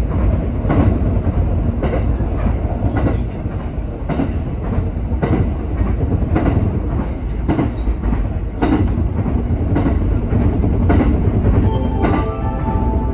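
JR West 227 series electric train running along the line, its wheels clicking over rail joints about once a second over a steady rolling rumble. A few brief tones ring out near the end.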